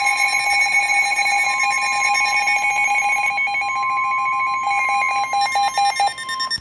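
Emergency Alert System two-tone attention signal, two steady tones sounding together, which announces an emergency alert broadcast. Near the end the tone stutters into short pulses and then cuts off.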